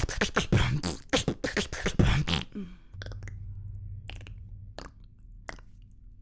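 Beatboxing: a fast, dense vocal-percussion beat for about two and a half seconds, then a quieter low hum with a few separate sharp cracks, the sound of bones cracking as he twists his neck. He says at least one was a real crack of his neck.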